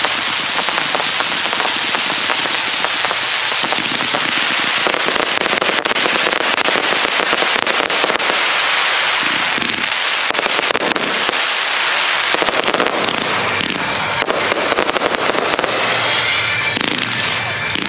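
Fireworks going off in a dense, continuous crackle of many small rapid pops, loud and sustained.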